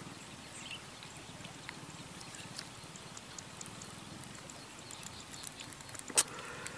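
Outdoor ambience by open water: a low steady hum with scattered faint clicks and ticks, and one sharp click about six seconds in.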